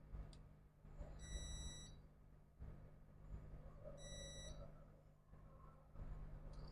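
Two short, high-pitched electronic beeps from a multimeter's piezo beeper, the first a little over a second in and the second about four seconds in, with a few faint clicks.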